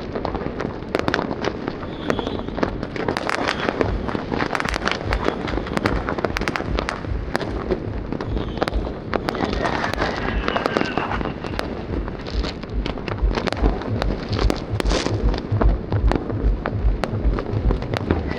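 A dense barrage of fireworks: many overlapping bangs and crackles going off without pause, with a faint falling whistle about ten seconds in.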